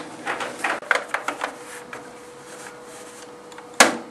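A quick run of sharp clicks and knocks, then after a pause one loud sharp knock near the end, over a faint steady hum.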